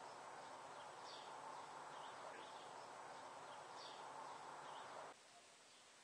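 Near silence: faint room tone with a few faint high chirps, cutting to dead silence about five seconds in.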